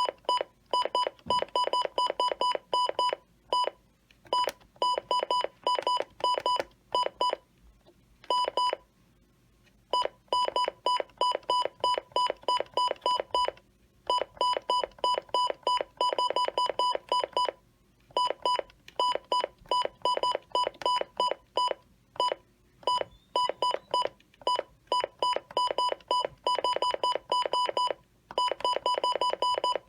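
Electronic alert beeping from a NOAA weather alert radio: short, sharp beeps of one pitch fired rapidly in runs, broken by brief pauses, sounding an incoming weather warning.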